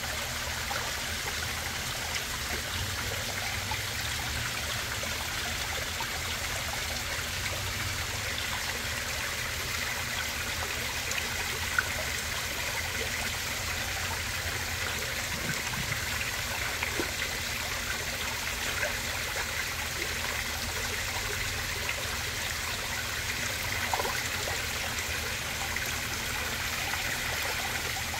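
Koi pond water running steadily, a constant trickling, streaming flow. A single sharp click sounds about twelve seconds in.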